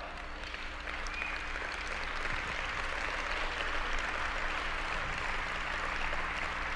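Audience applauding: a dense, steady wash of clapping that builds slightly.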